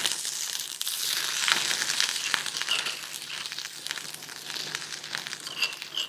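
Pounded green chilli, garlic, ginger, cumin and coriander paste sizzling and crackling in hot oil with popped mustard seeds in a kadhai. The sizzle is dense with many small pops and slowly dies down.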